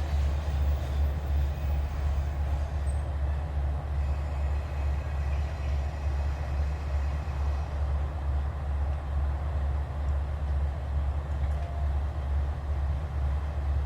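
KiHa 47 diesel railcar's engine running steadily with a low, even throb.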